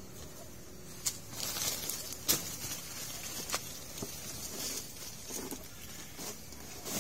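A woven plastic feed sack rustling as it is grabbed and hauled up, with a few sharp clicks and crackles scattered through.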